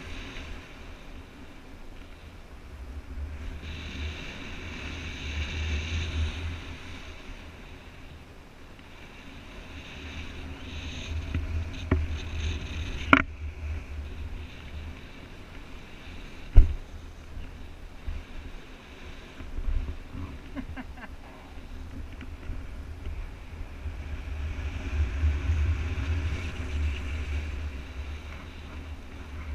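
Air rushing over a paraglider pilot's GoPro microphone in flight: a steady rush with a gusty low rumble that swells and fades, and two sharp knocks, the louder about sixteen seconds in.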